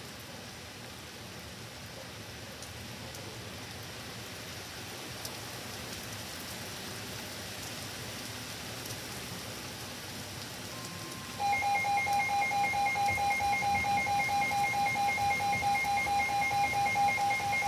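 Steady rain hiss. About eleven seconds in, an electronic emergency alert sounds: a steady high tone joined by loud, rapidly pulsing beeps, the alert tone that comes ahead of a tornado warning.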